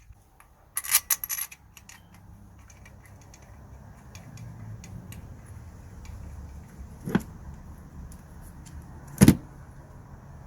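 Metal tools and bolts clinking briefly about a second in while a coil pack is being bolted onto a car engine, then two sharp knocks, the second louder, over a low steady rumble.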